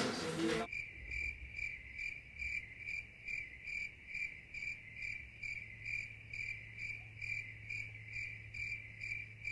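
Crickets chirping in an even, steady rhythm of about two to three short chirps a second, beginning about a second in: the comic 'crickets' sound effect for dead silence and boredom.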